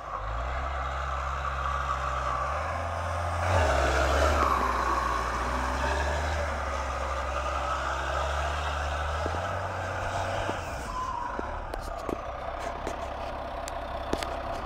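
Iveco rally truck's diesel engine running as it drives and slides through snow, with a steady rush of noise over it. The engine gets louder about three and a half seconds in and fades out past ten seconds, leaving a few sharp clicks near the end.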